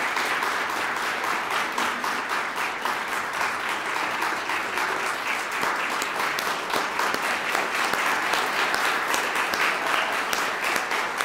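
Audience applauding: sustained clapping from a seated crowd in a lecture hall, with no letting-up.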